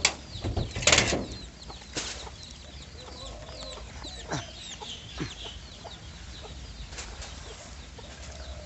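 Chickens clucking and small birds chirping, many quick chirps in the middle stretch. A brief, loud noise about a second in is the loudest thing.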